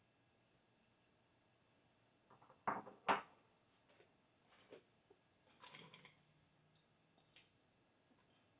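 Mostly quiet kitchen with light handling of dishes and food: two sharp knocks about three seconds in, then a brief soft clatter a little after the middle as cut carrots and potatoes go into the mixing bowl.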